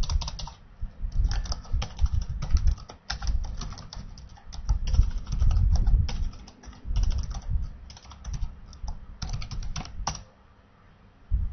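Typing on a computer keyboard: irregular runs of key clicks with short pauses, stopping about ten seconds in.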